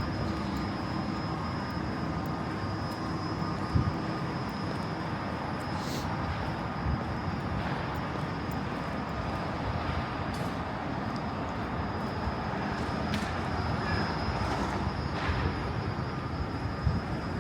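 Train running with a steady rumble and a thin high whine; a lower hum drops out about four seconds in, and a few faint clicks sound over it.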